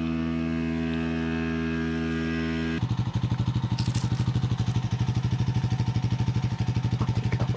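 A motor engine running. It holds a steady note for the first few seconds, then changes to a rhythmic chugging of about nine beats a second.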